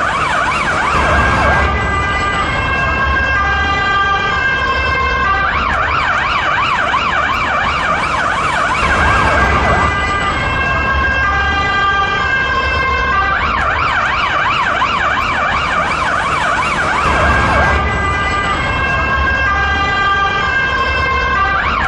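Finnish police car's electronic siren running continuously in a repeating cycle: a few seconds of fast up-and-down warbling sweeps, then a few seconds of stepped two-tone notes, then the warble again.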